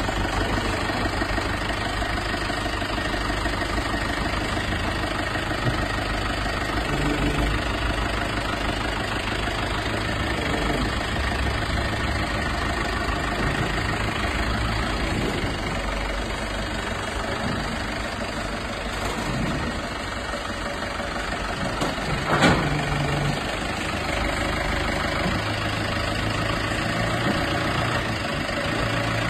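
Skid steer loader's engine running steadily, its note shifting a few times, with a single sharp knock about 22 seconds in.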